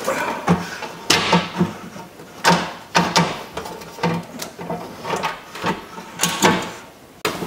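Plastic door vapor barrier sheet crinkling and rustling as it is handled and laid back against the door, in an irregular string of sharp crackles.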